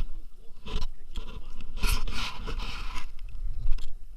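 Irregular scraping and rubbing noises in a few short bursts, the longest about two seconds in.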